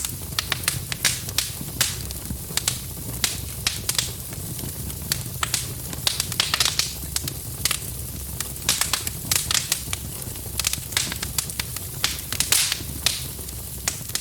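Wood fire burning in a fireplace: irregular sharp crackles and pops, several a second, over a steady low rumble.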